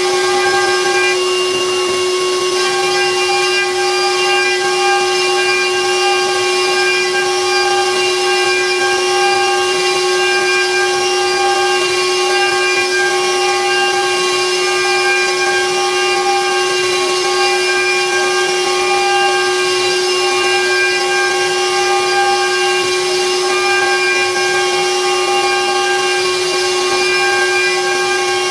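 CNC router spindle running at a steady high-pitched whine while its bit mills a round recess into a wooden cutting board, with a hiss of cutting over the top.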